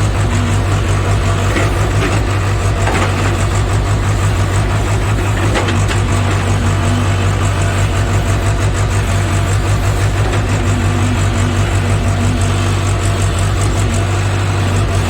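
JCB JS81 excavator's diesel engine running steadily at a low, even hum, with a few faint knocks.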